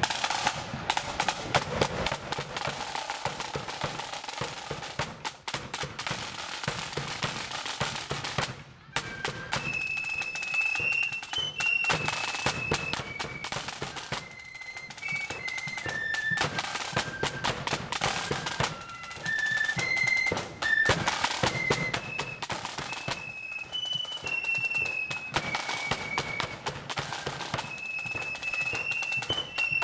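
Marching flute band: side drums rattle out a beat alone with the bass drum for the first eight or nine seconds. After a brief break, the flutes come in with a high tune over the drums.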